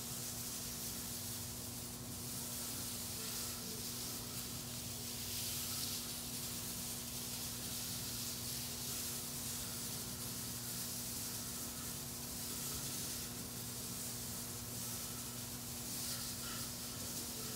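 Steady hiss with a low, constant hum beneath it; the hiss swells slightly now and then.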